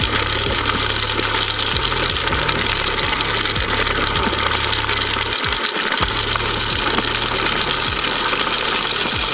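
ECHO RB-60 broadcast spreader being cranked: a steady whir from its gears and the rattle of rock salt flung off the spinner, with a low hum underneath.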